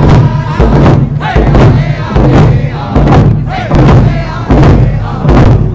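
Hand drums beating an even, steady beat while a crowd sings and chants along in raised voices; very loud.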